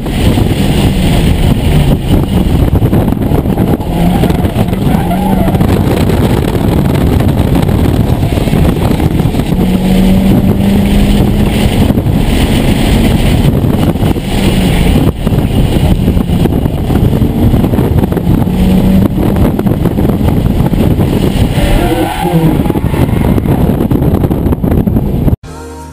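Mitsubishi Lancer Evolution IX's turbocharged 2.0-litre four-cylinder running hard on track, heard inside the stripped cabin as a loud, dense rush of engine, tyre and road noise, the engine note shifting as the revs rise and fall. It cuts off suddenly near the end, giving way to music.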